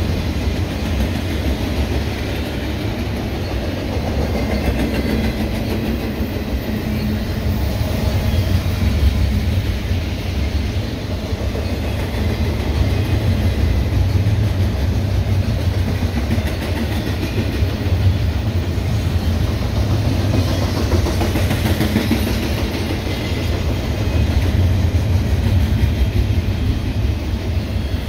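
Double-stack container freight cars rolling past, their steel wheels running over the rails in a steady, loud, low noise.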